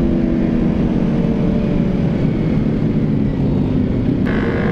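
Kawasaki sport motorcycle engine running while riding, heard from the rider's seat over heavy wind rush; the engine note eases down slowly at first. A steady higher tone joins about four seconds in.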